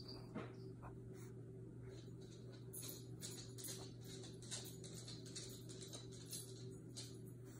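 Felt-tip marker scratching on paper in a quick series of short strokes, starting about three seconds in, over a faint steady hum.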